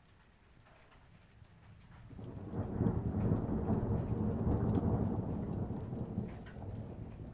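A roll of thunder that swells up about two seconds in, rumbles deeply for a few seconds and slowly fades, over light rain with scattered drop ticks.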